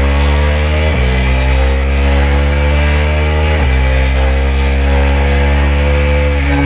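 KTM RC 390's single-cylinder engine pulling hard, its pitch climbing steadily through the gears with two quick upshifts about one and three and a half seconds in. Near the end the pitch begins to fall as the throttle eases.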